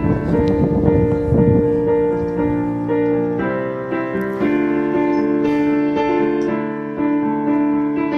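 Electronic keyboard playing slow, sustained chords, the notes held and changing every second or so, as an instrumental intro before the singing.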